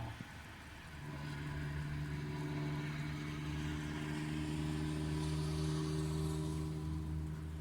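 A steady engine hum that comes in about a second in and grows a little louder toward the middle.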